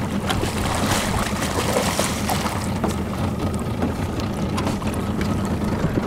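A large hooked trout thrashing and splashing at the water's surface beside the boat, splashing strongest in the first two or three seconds. A steady low hum of the boat's motor runs underneath.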